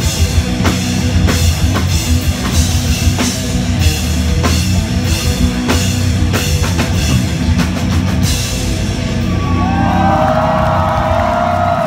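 Live rock band playing at full volume through a club PA, heard from the audience: pounding drum kit and distorted electric guitars. About eight seconds in the drums stop and the last chord rings out while the crowd starts cheering and whistling.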